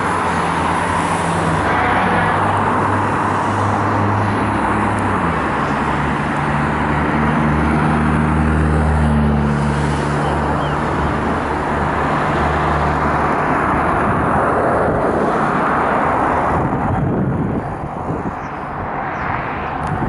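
Boat engine running, its low tone stepping in pitch a few times as the throttle changes, over a steady rushing noise; the engine tone drops away about two-thirds of the way through.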